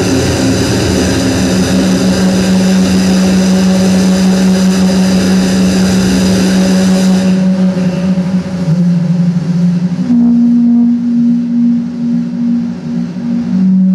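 Live electronic harsh noise music: a loud, dense hiss over a steady low drone. About seven seconds in the hiss falls away, leaving the drone, which drops in pitch and then jumps higher about ten seconds in, and its loudness wavers near the end.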